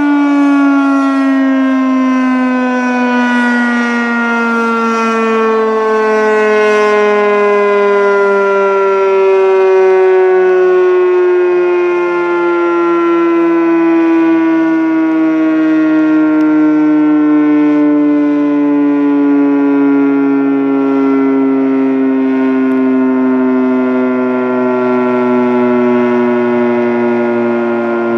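Federal Signal 3T22A three-tone rotating civil-defense siren sounding loud and steady, its chord slowly sliding down in pitch.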